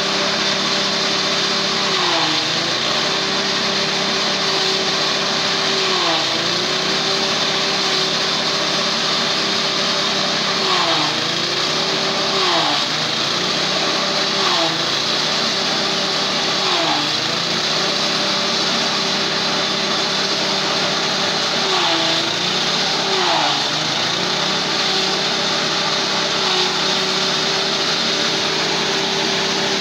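Small engine-driven forage chopper shredding corn stalks. The engine runs steadily at high speed, with a chopping hiss over it. About eight times its pitch dips briefly as it bogs under the load of an armful being fed in, then recovers.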